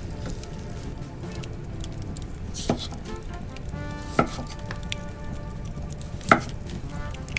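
Three sharp knocks, about a second and a half to two seconds apart, the last one the loudest, over steady background music.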